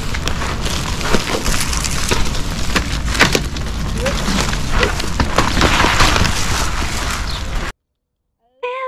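Loud, dense crackling and rustling noise with a low rumble and many sharp clicks, which cuts off abruptly near the end; electronic music starts just after.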